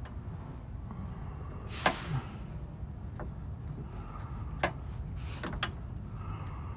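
Crescent wrench clicking and knocking against a truck radiator's drain plug as it is turned a half turn at a time: a handful of short sharp clicks at uneven spacing, the loudest about two seconds in, over a steady low rumble.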